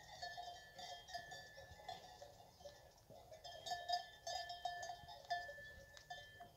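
Cowbells on the cattle's neck collars clanking irregularly, with ringing notes that hang on between strikes.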